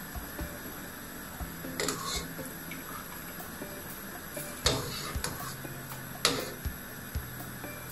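Metal spoon stirring gnocchi in a frying pan, then a skimmer dipping into a pot of boiling water, with a few sharp clinks of metal on the pans, the loudest about two thirds of the way through, over the steady low hiss of the boiling water.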